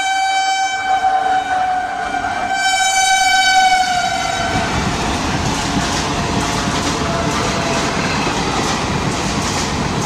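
An electric locomotive's horn sounds one long blast as the train approaches, dipping slightly in pitch as it passes, then stops about four and a half seconds in. The rush and clatter of the passenger coaches' wheels on the rails follows as they speed through the station.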